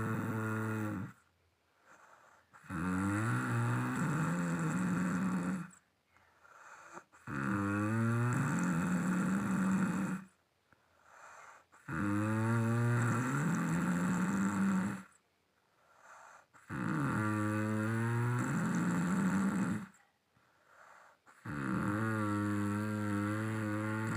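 Snoring in a steady rhythm: long, droning, pitched snores about three seconds each, coming roughly every five seconds, with short quiet breaths in between. Five full snores, plus the tail of one at the start.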